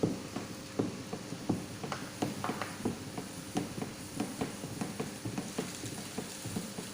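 Homemade dishwashing liquid being stirred in a large bucket just after the foaming powder goes in, the stirring stick knocking and clacking irregularly against the bucket several times a second.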